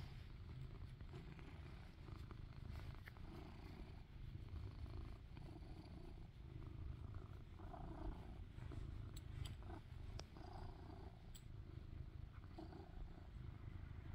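Kitten purring steadily close to the microphone, the purr swelling and easing in slow waves, with a few faint clicks midway.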